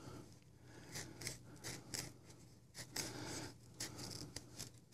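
Scissors cutting through a sheet of grey case foam: a run of short, faint snips at an uneven pace.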